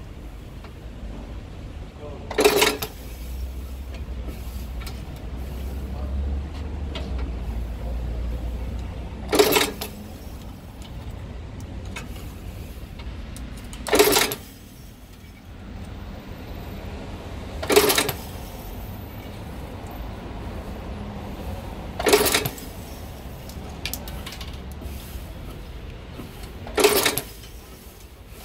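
KM 6800 semi-automatic nailing machine, a snap-button setting press, striking six times at uneven intervals of about four to five seconds. Each stroke is a short, sharp metal clank with a brief ring, setting one snap button into the fabric.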